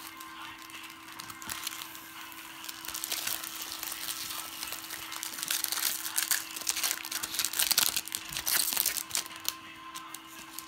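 The wrapper of a trading-card pack being torn open and crinkled, with cards handled, loudest through the second half, over a faint steady hum.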